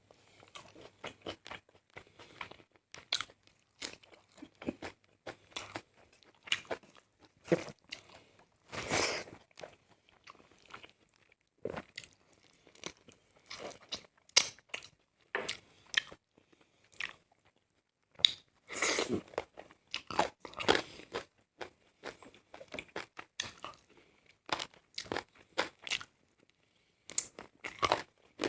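A person eating close to the microphone: crunchy bites and chewing in an irregular run of short sounds, with a few louder bites along the way.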